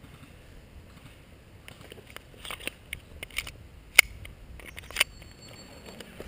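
Scattered sharp clicks and snaps, the two loudest about four and five seconds in.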